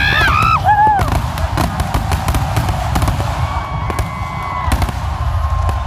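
Aerial fireworks bursting in quick succession: a dense low rumble of booms with many sharp bangs and crackles. Onlookers' voices call out near the start.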